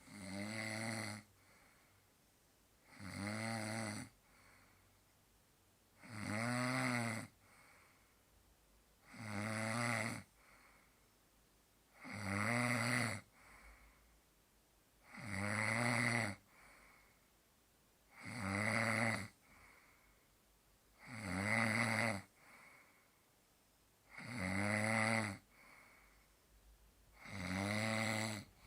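A man snoring in a steady rhythm: about ten snores, one roughly every three seconds, each a pitched snore lasting about a second, with a faint breath between them.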